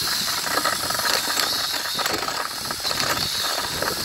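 Cordless drill running a 13/16-inch carbide-tipped ship auger bit down into soil: steady motor whine with a fast, gritty rattle as the auger churns up dirt.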